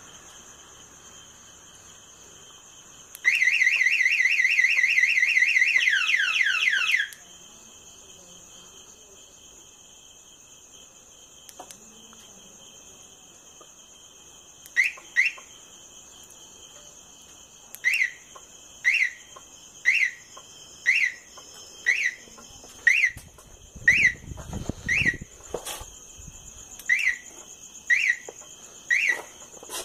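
Motorcycle remote anti-theft alarm: a loud, rapid warbling siren for about four seconds that ends in a few falling sweeps. About halfway in, a string of short electronic chirps begins, roughly one a second.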